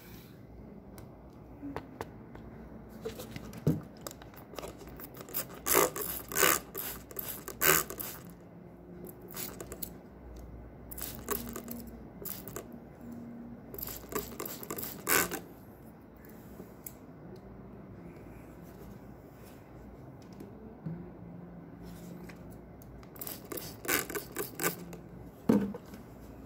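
Scrubbing and scraping strokes as caked dust is cleaned off a laptop CPU heatsink with alcohol, coming in several runs of quick strokes with quieter handling noises between.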